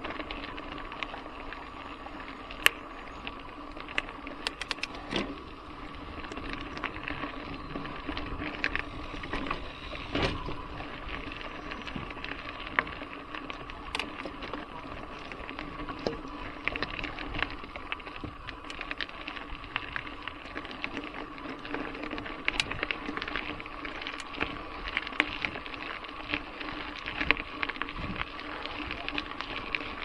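Trek Fuel EX 7 full-suspension mountain bike riding over a gravel singletrack: tyres running on loose stones and the bike rattling, with many sharp clicks and knocks over a steady hum.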